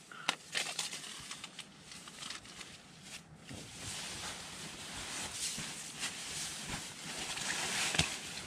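Sleeping bag fabric rustling as it is handled and pulled about. A few sharp clicks and crinkles come in the first second or so, then the rustling grows louder and steadier from about three seconds in.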